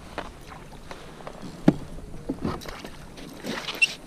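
Hollow knocks of rod, net and paddle against a plastic sit-on-top kayak as a hooked small bass is brought alongside, the loudest about a second and a half in. A short rush of water splashing comes near the end.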